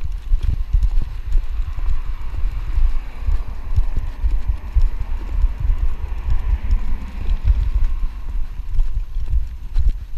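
Walking on a pavement: a quick, steady run of low thumps from footsteps jolting a body-worn camera. In the middle, a car passes on the road alongside with a rising then fading tyre hiss.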